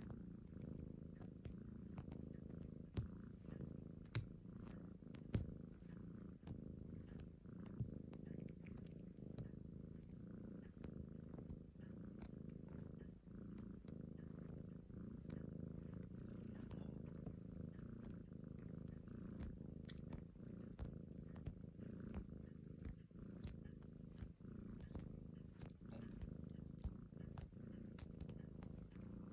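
Black-and-white kitten purring steadily while dozing, a soft low rumble, with a few faint clicks a few seconds in.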